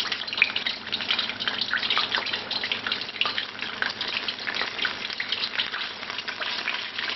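Beer-battered basa fillet frying in hot oil in a wok: a steady sizzle made of many small crackling pops.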